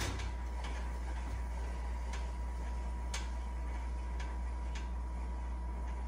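Two balloon beach-cart tires freewheeling on an axle after a hand spin, one on a dry bushing and one on sealed stainless-steel bearings, with a light tick every half second to a second over a steady low hum.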